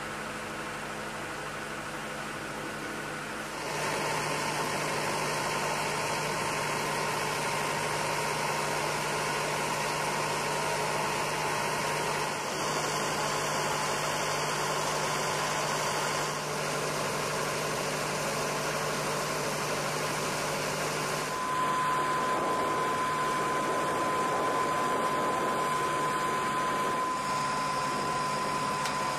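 Ground power unit's engine running steadily, with a low hum and a steady high whine. The noise jumps louder a few seconds in and twice more later.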